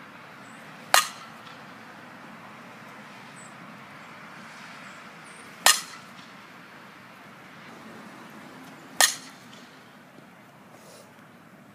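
Softball bat striking the ball three times in batting practice, each hit a single sharp crack, about five seconds and then three seconds apart.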